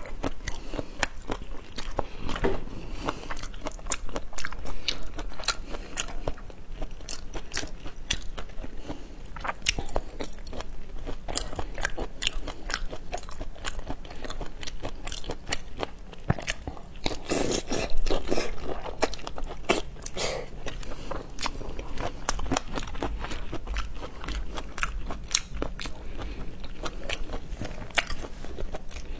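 Close-miked mouth eating sounds: biting, sucking and wet chewing of shell-on seafood in spicy sauce, full of small crunches and smacks. A louder stretch comes about two-thirds of the way through.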